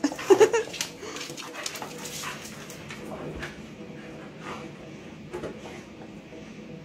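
Dogs play-wrestling: a dog gives a short whimpering cry right at the start, followed by quieter scuffling, clicks and faint grumbles and panting.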